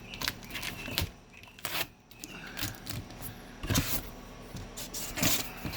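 Cardboard packaging being handled and pulled open: irregular rustles, scrapes and light knocks.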